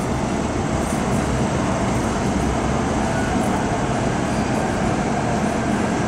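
First-generation MTR M-Train electric multiple unit running through an underground station behind the platform screen doors. Its wheel and rail noise goes on steadily throughout.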